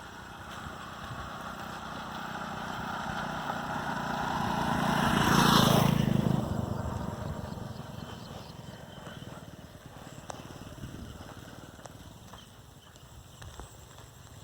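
A motor vehicle passing by, its engine growing louder to a peak about five and a half seconds in, then fading away.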